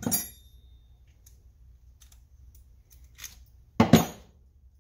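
Metal hand tools handled on a plywood workbench: a sharp metallic clink with a brief ringing at the start, a faint click a little after three seconds, then two louder knocks close together near the end as tools are shifted and picked up.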